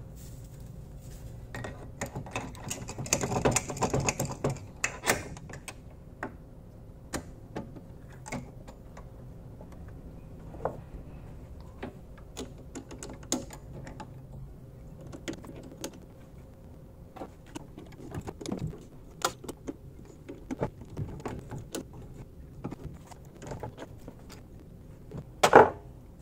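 Scattered metal clicks, clinks and rattles of hand work at a mini lathe: a tap fitted in the tailstock drill chuck and turned by hand into a freshly drilled hole to cut M12 threads. There is a denser clatter about three seconds in and a sharp knock near the end.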